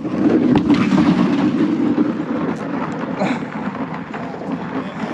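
A plastic kayak hull sliding fast across pond ice after a push: a low scraping rumble, loudest for the first couple of seconds and slowly fading as it glides away.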